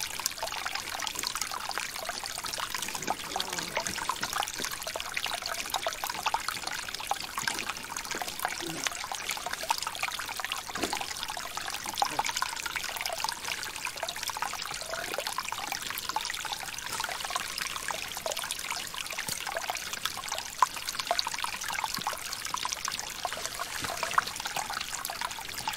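Small stream running over rocks, a steady trickling babble with fine splashes throughout.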